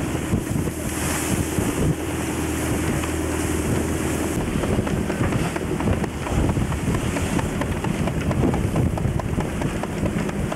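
Strong wind buffeting the microphone over a rough sea, with waves rushing and splashing past the hull of a yacht under way. A steady low hum sits underneath for the first few seconds, then fades out about four and a half seconds in.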